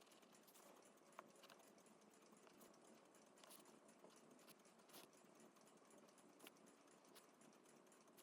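Near silence: faint room hiss with a few scattered soft clicks.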